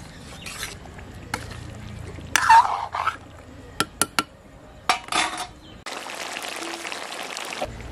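A metal spatula scraping and stirring thick curry in an iron karahi, with three sharp taps of metal on the pan around four seconds in. For the last two seconds a steady hiss of the curry simmering.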